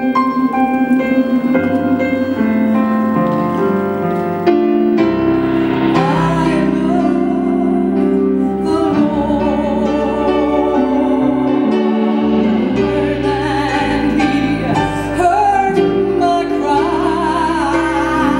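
A gospel song performed live: a keyboard plays held chords, and from about six seconds in a woman sings a solo line with vibrato over it.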